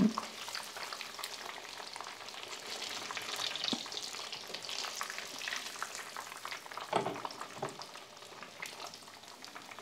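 Hot oil sizzling and crackling in a frying pan around chicken nuggets, slowly fading with the stove just switched off. There are a couple of light knocks about four and seven seconds in.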